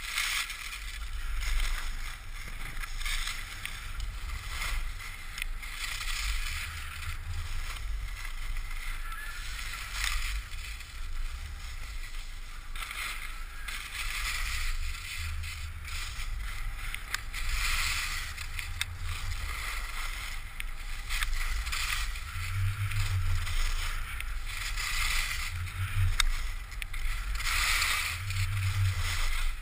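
Skis scraping and carving over packed snow, the hiss swelling with each turn every couple of seconds, over a steady wind rumble on the pole-mounted GoPro Hero's microphone.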